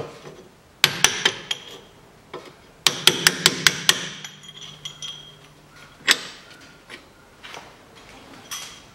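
Hammer blows on steel, knocking out the two bolts that hold a VAZ 2110's steering knuckle to the front strut. A few blows come about a second in, then a quick run of about seven ringing blows around three seconds in, and one more blow after that.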